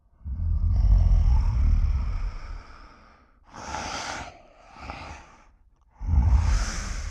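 Cartoon animal vocal effect: a low growl, then two short breathy hisses, and another growl with a hiss starting near the end.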